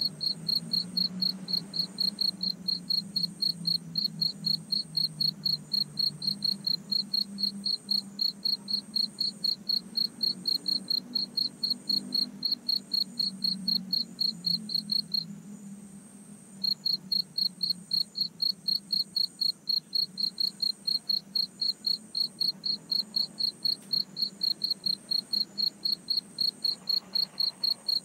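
High-pitched insect chirping in an even, rapid pulse of about three to four chirps a second, breaking off for a second or so a little past halfway, over a low steady hum.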